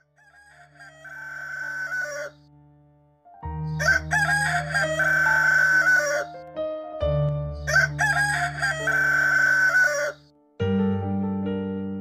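A rooster crowing three times, each crow a long call of about two to three seconds, the first fainter, over low sustained music tones. Electric piano music starts near the end.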